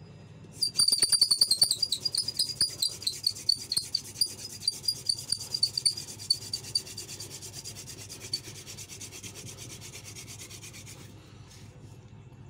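Hand-drill spindle spun rapidly back and forth between the palms, rubbing and squeaking in its notch on a small wooden fire board as friction builds heat. It starts about half a second in, is loudest over the first few seconds, then fades and stops shortly before the end.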